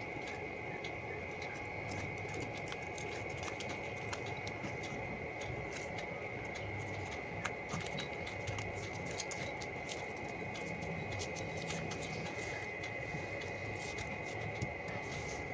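Foil origami paper crinkling and crackling as hands fold and press creases into it, in many small irregular crackles. A steady high-pitched tone runs underneath.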